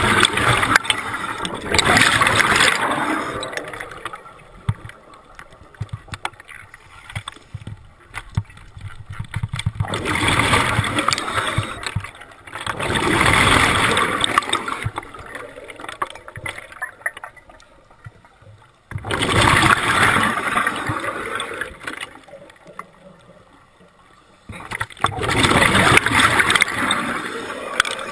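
A scuba diver breathing underwater through a regulator: exhaled bubbles rumble and gurgle past the mask in bursts of two to three seconds, five times, with quieter inhales between.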